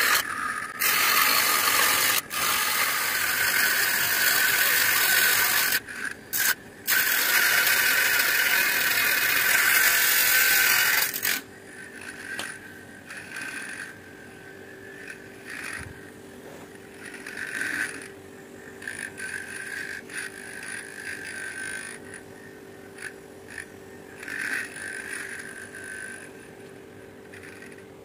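Small DC motor spinning an abrasive cutting disc that grinds through a piece of PVC sheet: a loud, even grinding with a few short breaks. About eleven seconds in it falls to a much quieter steady hum.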